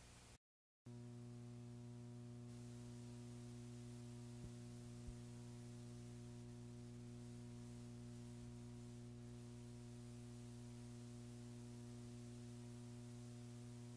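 Faint steady electrical mains hum, buzzy with a stack of overtones, from an old videotape transfer; it comes in after a half second of dead silence near the start, with two faint ticks around four and five seconds in.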